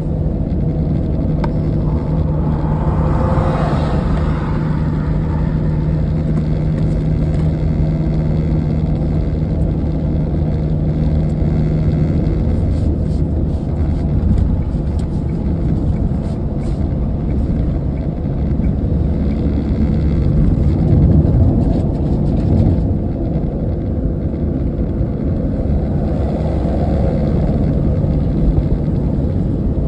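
Steady engine and tyre noise inside a vehicle's cabin while driving at motorway speed. A low steady hum holds for about the first twelve seconds, then fades.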